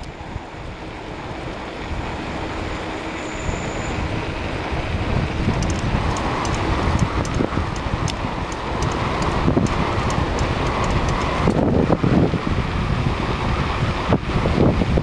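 Wind buffeting the microphone over the road noise of a vehicle moving along a paved road, growing steadily louder as it picks up speed, with scattered light clicks.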